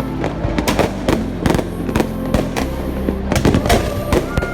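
Aerial fireworks going off: a rapid, irregular string of sharp bangs and crackles, several a second.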